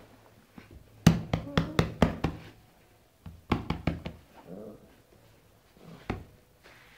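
A small dog yapping in quick runs of short, sharp barks, about a second in and again past the middle, with one more near the end.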